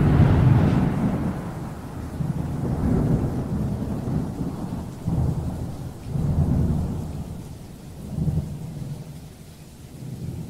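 Low rolling thunder: a loud rumble at the start, then several weaker swells that fade toward the end.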